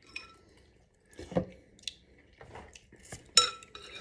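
Metal spoons scooping broth and clinking against a glass bowl, with one sharp, ringing clink a little past three seconds in.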